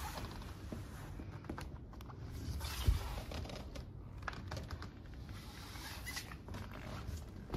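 Faint rustling and scattered small clicks, with a single knock about three seconds in: handling noise from the person filming, with the motorcycle's engine not running.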